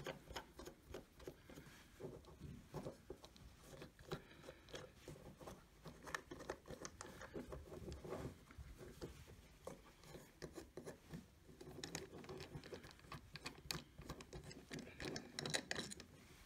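Faint scattered clicks and scrapes of a Rockit 88 delid tool being handled: its bolt is turned out and the tool is shifted and turned over on a wooden tabletop.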